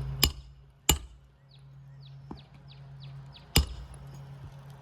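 Hammer striking roofing nails into brittle asphalt shingles: three sharp, ringing blows, two close together near the start and one about three and a half seconds in. Between them comes a quick run of short, high, falling chirps.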